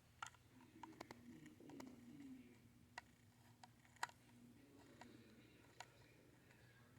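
Near silence broken by faint, irregular small ticks and clicks, about one a second: a T6 Torx screwdriver working the tiny cover screws out of a Hitachi laptop hard drive.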